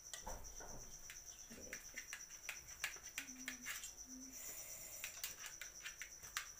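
Knife tapping and scraping against a steel plate while cutting a soft block of cooked besan into pieces, many short sharp clicks. Behind it, a steady high-pitched pulsing trill, like an insect's chirring.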